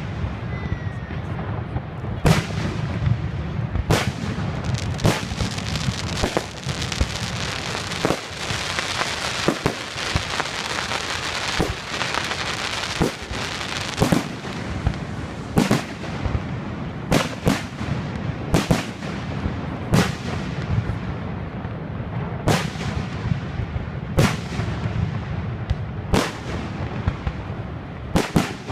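Aerial fireworks shells bursting with sharp bangs, about one every one to two seconds, with a stretch of dense crackling around the middle. A steady low rumble runs underneath.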